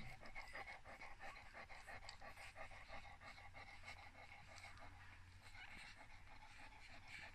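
Faint, quick rhythmic sounds, several a second, from an English Cocker Spaniel mother nursing her three-day-old puppies, easing off about halfway through.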